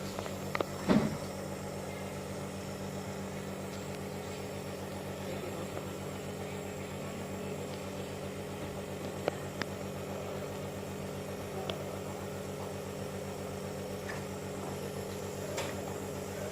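Steady electric hum of a nebulizer's compressor running. A sharp knock comes about a second in and two small clicks a little past nine seconds.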